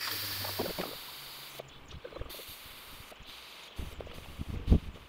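Instant Pot Lux pressure cooker venting leftover steam through its release valve, a hiss that fades and stops about a second and a half in, with a weaker hiss soon after. Then a few knocks and clunks, the loudest near the end.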